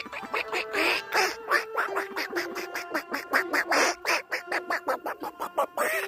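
A flock of domestic ducks quacking in a fast, continuous string of short calls, several a second, with music playing underneath.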